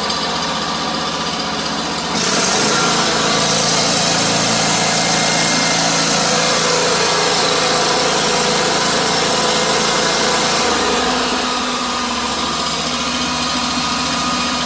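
John Deere Z930M zero-turn mower's engine idling steadily. From about two seconds in to about eleven seconds it is a little louder, with more hiss on top.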